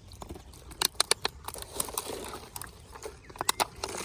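A plastic-bottle fish trap being handled just after it is lifted from the water with a fish caught inside: a run of sharp plastic taps and clicks, bunched about a second in and again near the end.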